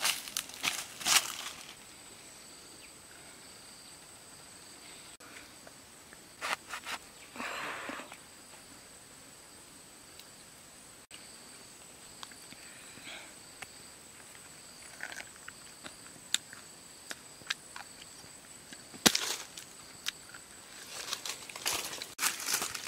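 Bare footsteps crunching and rustling through dry fallen leaves, in short crackly bursts near the start, about a third of the way in, and again near the end. Between them, a faint steady high whine.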